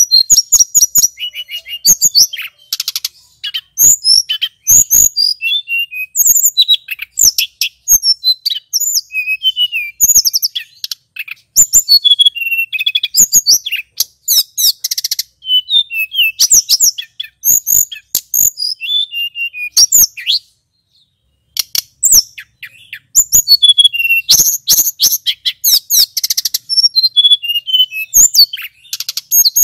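Male tledekan gunung (a blue flycatcher) in full song: a long run of fast, high-pitched warbling phrases mixed with rapid trills, breaking off for a moment about two-thirds of the way through.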